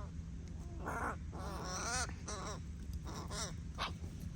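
A crow cawing, a series of about five short harsh calls over a few seconds.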